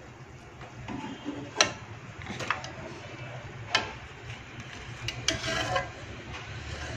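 Metal tongs and a ladle clinking and scraping against a metal cooking pot full of cooked tomatoes, a few sharp clicks spread out, the loudest about one and a half seconds in.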